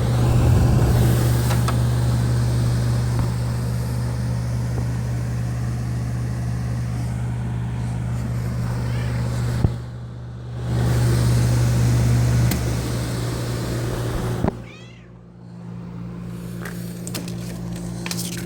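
1960s Fedders 8,000 BTU window air conditioner running: a steady low electric hum with a rush of fan air. The sound drops out briefly about ten seconds in, then falls away about fourteen and a half seconds in to a quieter, higher hum.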